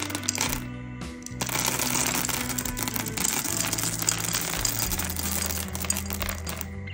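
Candy-coated chocolate buttons pouring out of a glass jar and clattering in a dense stream of small clicks onto a hard tabletop, with a short lull about a second in. Background music with a steady bass line plays underneath.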